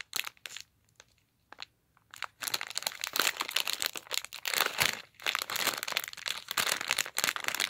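Plastic LEGO Minifigures blind bag crinkling as it is torn open and handled. After a mostly quiet start with a few small clicks, dense crackling begins a little over two seconds in and carries on.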